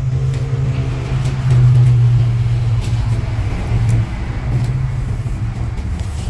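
A steady low engine hum, swelling briefly about one and a half seconds in.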